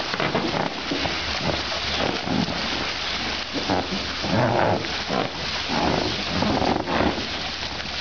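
Water splashing in an inflatable paddling pool as baby elephants roll in it, with a hose spraying water into the pool. A few short vocal sounds come about halfway through and again near the end.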